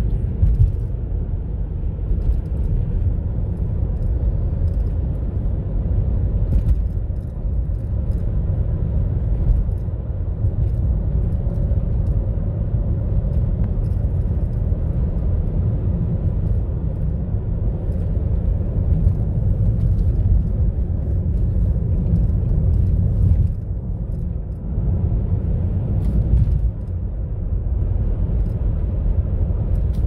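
Steady low rumble of a car in motion, heard from inside the cabin: tyre and engine noise, easing off briefly about three quarters of the way through.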